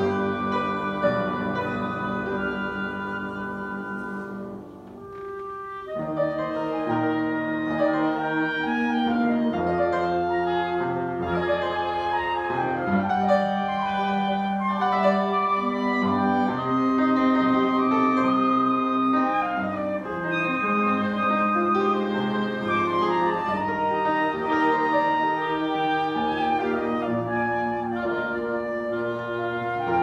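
Live ensemble music led by an upright piano, with long held melody notes from other instruments. The music thins to a quiet moment about five seconds in, then resumes.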